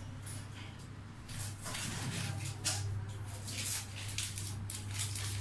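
Kitchen handling noise during food preparation: a run of irregular scratchy rustles starting about a second in, over a steady low hum.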